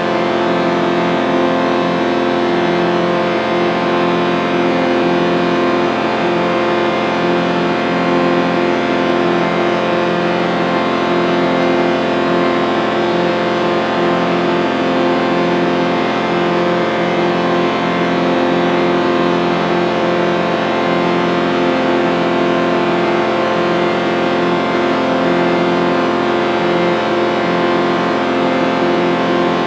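A sustained chord sound effect: many tones held together as one steady drone with a slow wavering shimmer, never changing in loudness.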